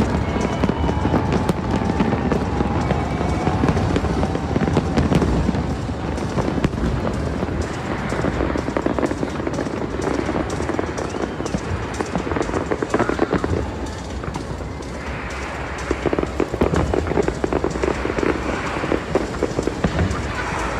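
Aerial fireworks crackling and popping in dense, rapid clusters, with music playing along with the display.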